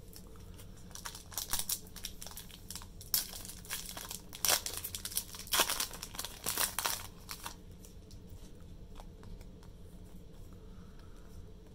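A Pokémon booster pack's foil wrapper crinkling and tearing as it is opened, in a run of sharp rustles that dies down for the last few seconds.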